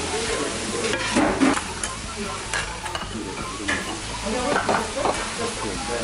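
Dakgalbi (spicy chicken with cabbage, rice cakes and noodles) sizzling on a large hot round pan. A spatula stirs and turns it, scraping against the pan in a few short strokes.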